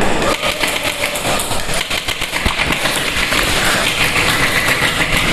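Airsoft guns firing in a continuous fast rattle of many closely spaced shots.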